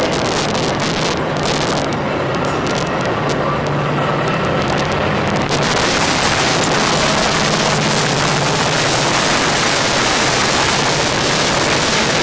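Metra bi-level commuter train cars rolling past at speed: a steady rush of wheels on rail, with wind buffeting the microphone. The noise grows louder and hissier about five and a half seconds in.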